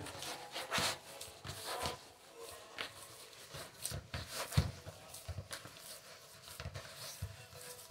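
Hands mixing and squeezing crumbly pastry dough of flour, butter and egg in a plastic bowl: irregular soft knocks and thuds of the bowl shifting on the counter, with the loudest thud about four and a half seconds in.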